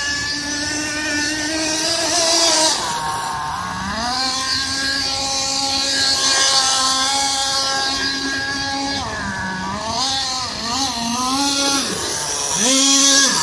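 Team Associated RC10GT nitro truck's XTM .18 glow engine running at high revs. It holds a high pitch for several seconds, drops off about three seconds in and again around nine seconds, blips up and down a few times after that, then revs hard briefly near the end.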